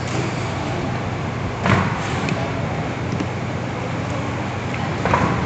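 Steady hum of running packing machinery, with two short clattering knocks, one a little under two seconds in and one near the end.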